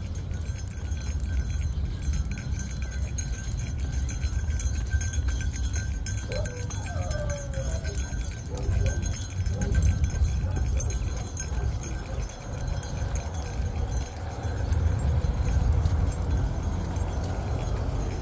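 Metal tags and leash clip on a walking dog's collar jingling, over a steady low rumble of movement and wind on the microphone.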